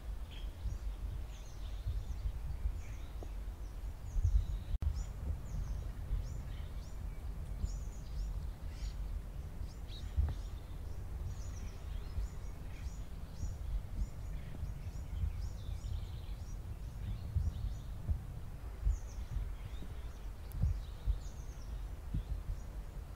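Small birds chirping many times over a steady low rumble.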